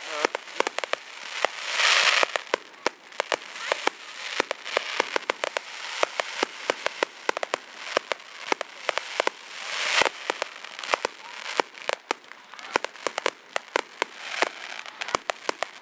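Fireworks display: a rapid run of sharp bangs and crackles, with denser crackling swells about two seconds in and again around ten seconds.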